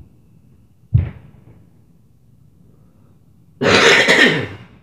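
A single heavy thud from the floor above about a second in, then a loud cough lasting about a second near the end.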